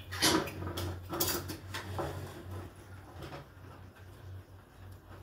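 A few sharp clinks and knocks in the first two seconds, then fainter ones, over a steady low hum.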